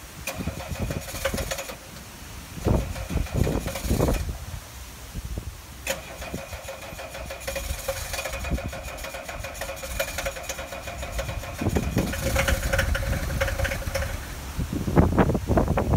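Mercedes-Benz 300D's five-cylinder diesel being cold-started: the starter cranks in two long spells with a steady whine, while the engine fires unevenly. The rumble of firing grows louder near the end as the engine begins to catch.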